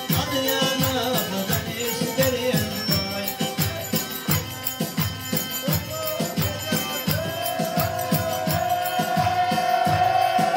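Live Turkish folk dance music: a kemane, a bowed folk fiddle, plays the melody over a fast, steady drum beat. About seven seconds in, the melody settles on one long held note.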